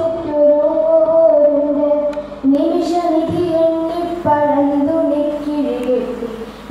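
A girl singing solo into a handheld microphone, in long held notes that glide from pitch to pitch.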